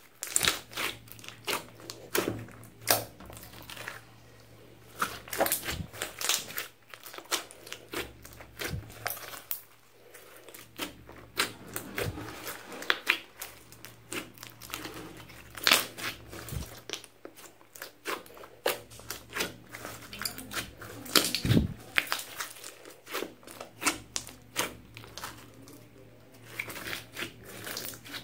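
A large mass of mixed slime studded with foam beads being kneaded and squeezed by hand: irregular wet squelches, pops and crackles, some sharp and loud, coming in quick clusters.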